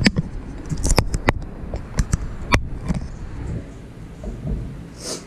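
Handling noise from a camera being moved: a run of sharp knocks and clicks over a low rumble, with a louder rustle near the end.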